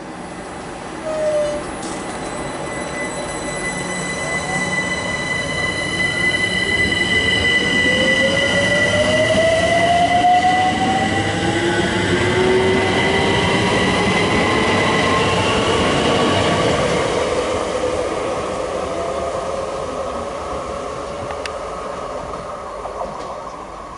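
London Overground Class 378 Electrostar electric train accelerating, its traction motors whining in a rising pitch over a steady high whistle. The sound builds to its loudest about ten seconds in, then fades as the train draws away.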